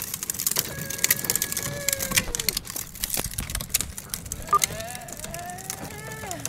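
Hard plastic wheels of a Little Tikes Cozy Truck ride-on toy rolling over a concrete sidewalk, a steady crackle of dense clicks as grit crunches under them. A faint voice sounds briefly about a second in and again near the end.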